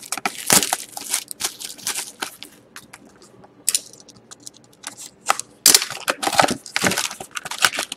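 Cellophane shrink wrap on a cardboard trading-card box being cut with a box cutter and torn off, crinkling and crackling in irregular bursts, with a sharp click about halfway through.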